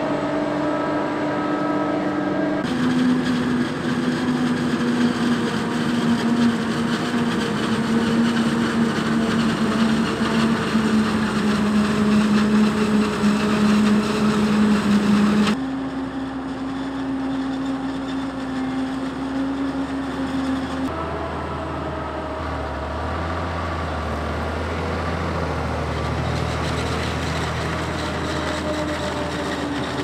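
Diesel engines of heavy farm machinery at work in maize chopping, across four shots that change abruptly about 3, 15 and 21 seconds in. Each shot holds a steady engine hum at its own pitch. The second shot is the loudest and carries the most hiss.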